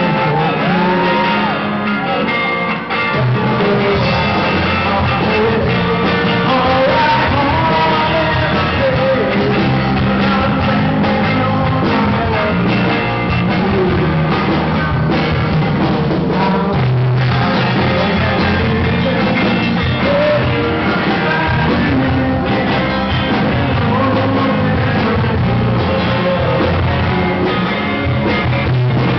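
Live rock band playing: electric guitars and a drum kit, with a man singing lead. The full band comes in about three seconds in.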